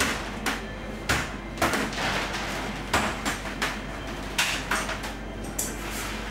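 Irregular sharp knocks and clacks, about two a second, as rock candy rope is cut and handled on a steel bench.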